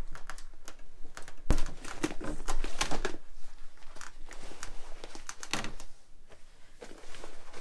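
Deflated Intex Classic Downy air bed, flocked vinyl, rustling and crinkling as it is unfolded and spread flat by hand, with one sharp knock about a second and a half in.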